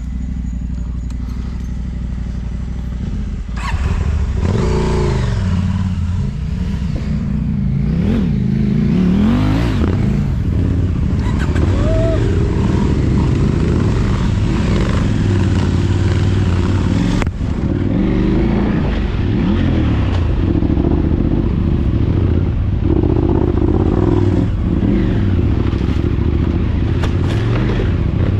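Engine of a moving motor vehicle, its pitch rising and falling again and again as it accelerates and eases off, over steady low road and wind rumble.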